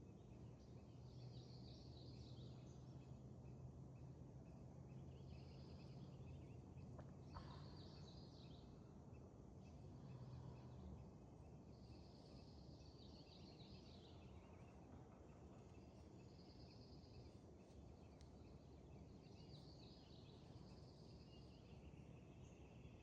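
Faint songbirds singing outdoors: short high-pitched songs every few seconds over a soft background hiss. A low steady hum fades out about halfway through.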